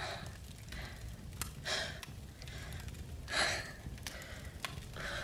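A young woman breathing heavily in distress: a few audible gasping breaths about one every second and a half, the middle one loudest, over a low steady background with a few faint clicks.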